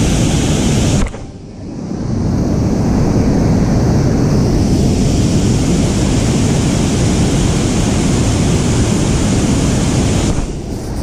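Steady rush of whitewater pouring over a concrete dam spillway and churning in the river below, with wind buffeting the microphone. The sound drops away briefly about a second in.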